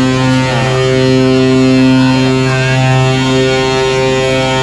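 Passenger ship's horn (KM Lawit) giving one long, steady blast, a deep tone with many overtones. The single blast is the first departure signal, about an hour before the ship sails.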